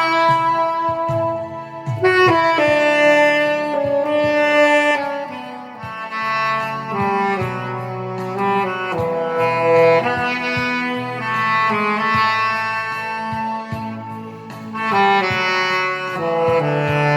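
Saxophone playing a slow song melody in long held notes over a backing track with bass and drums.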